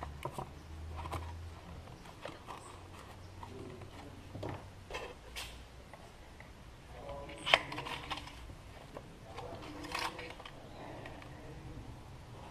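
Quiet handling sounds at the Peugeot 406's engine: a few scattered clicks and knocks as the oil filler cap is refitted and the oil dipstick is drawn out to check the level. The sharpest click comes about seven and a half seconds in.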